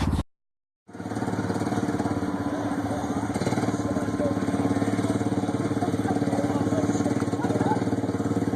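Go-kart's small engine idling steadily with an even, rapid putter, after a brief dropout of sound just after the start.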